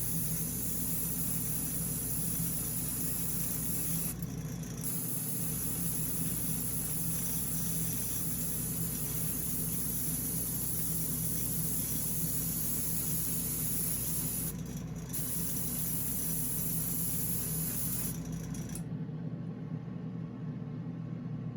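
Spray paint hissing steadily as light coats go onto a die-cast model's base. There are brief breaks about 4, 15 and 18 seconds in, and the spraying stops about 19 seconds in.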